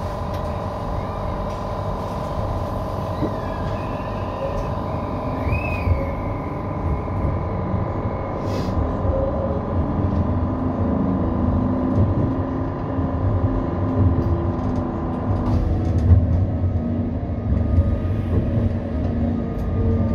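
CAF Urbos 3 tram heard from its driver's cab while running along the street: a continuous low rumble of the running gear on the rails. Over it is a steady high whine that cuts off about three-quarters of the way through.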